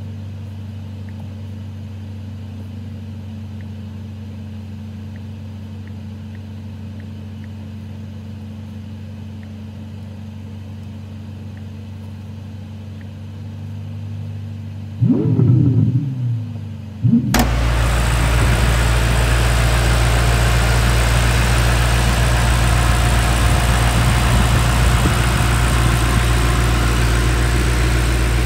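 BMW M5 Competition's 4.4-litre twin-turbo V8 idling steadily, then revved once about fifteen seconds in, the pitch rising and falling back. Soon after, the sound cuts abruptly to the engine running louder and steady under a broad hiss.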